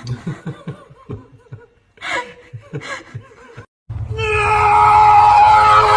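Soft snickering laughter in short bursts. About four seconds in it gives way to a loud, steady pitched tone with overtones, held to the end.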